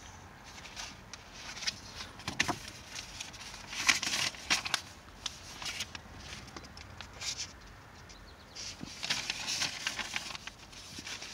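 Paper pages of a small booklet being handled and turned: crisp rustling with small clicks, loudest about four seconds in and again around nine to ten seconds in.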